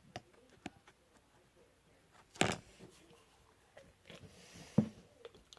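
Scattered small clicks and knocks of slime-making things being handled, such as a cup, spoon and bottle, with two louder knocks about two and a half and five seconds in.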